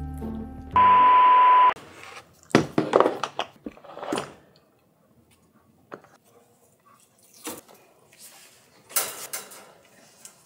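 Background music stops, then a loud electronic beep over a hiss lasts about a second. After that come scattered knocks and metallic clatter from a wire dog crate being handled on a hard floor.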